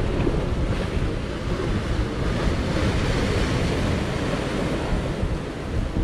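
Sea waves surging and breaking against a rocky shore, with wind buffeting the microphone and adding a low rumble.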